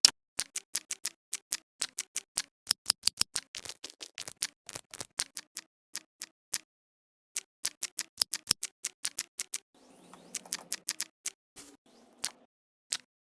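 A rapid series of sharp clicks, about five a second, with a brief pause about halfway through and a faint rustle near the end.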